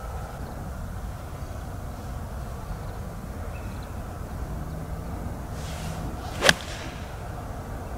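Golf shot with an 8-iron: a short swish of the club on the downswing, then one sharp click as the iron strikes the ball, about six and a half seconds in.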